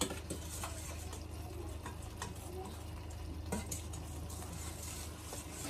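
Faint kitchen-work sounds: a few light clicks and scrapes of a utensil in a pot, over a steady low hum.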